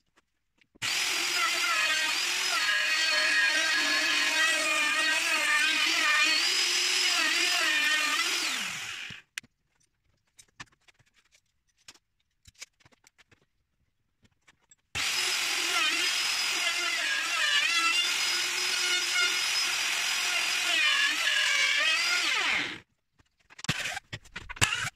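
Electric router running at high speed and cutting sapele, twice for about eight seconds each, its pitch wavering under load and falling away as it spins down each time. A few short knocks follow near the end.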